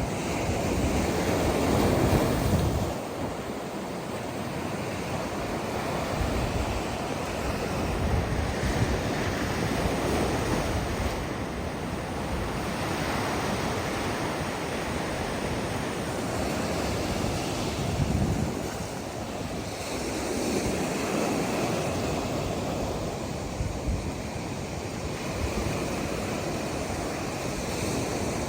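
Ocean surf breaking and washing up the beach, a continuous rush that swells and falls back several times, loudest about two seconds in.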